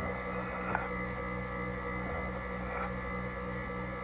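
Steady electrical hum with a few faint clicks and taps as the chainsaw's chain and bar are handled and fitted.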